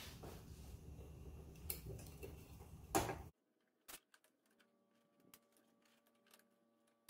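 Plastic zip ties being handled and cinched around the golf cart's metal roof strut: rustling and scattered clicks, with one sharper click about three seconds in. After that the sound drops to a few faint, isolated ticks.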